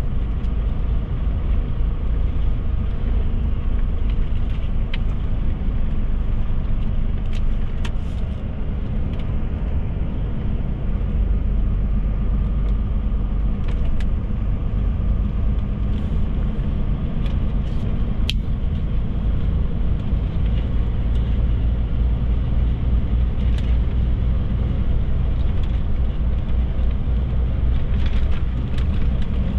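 DAF XF truck's diesel engine running steadily on the road, a continuous low rumble with tyre and road noise, and a few brief sharp clicks or ticks scattered through it, the clearest a little past halfway.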